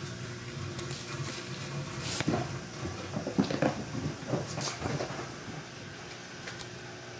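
Small kittens' paws scampering, pouncing and scrabbling on a wooden floor and shag rug: scattered soft taps and thumps, several of them clustered between about one and five seconds in, over a faint steady low hum.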